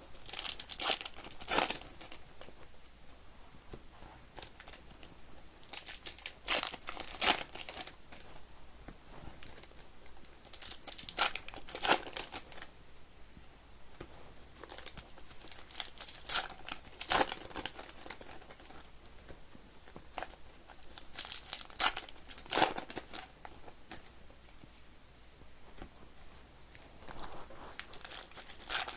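Wrappers of trading-card packs being torn open and crinkled by hand, in bursts every four to five seconds as one pack after another is opened.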